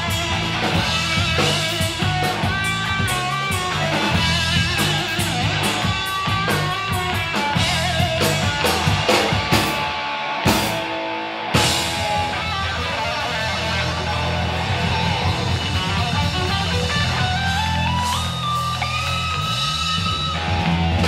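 Live rock band playing: electric guitars over drum kit and bass. About ten seconds in the whole band stops dead for about a second, then comes back in together, and near the end a lead line climbs step by step in pitch.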